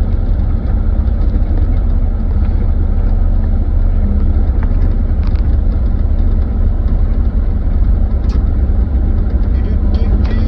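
Kubota KX040-4 mini excavator's diesel engine running steadily under work, a loud, deep rumble with a faint steady hum above it and a few light clicks and knocks.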